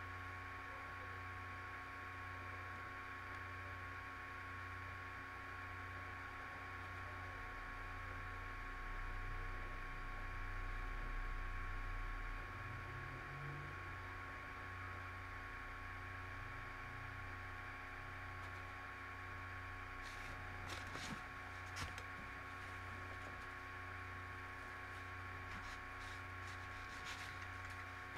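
Steady electrical mains hum with a faint hiss, from a noisy recording line. A few faint clicks come in about two-thirds of the way through.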